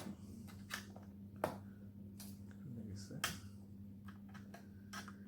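Scattered sharp plastic clicks and snaps as a laptop's bottom cover is pried and worked loose, about half a dozen over a few seconds, over a steady low hum.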